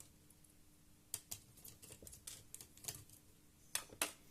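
Faint, scattered small sharp clicks and taps of a screwdriver working the screws of a laptop's CPU heatsink as they are loosened a little at a time. The two loudest clicks come close together near the end.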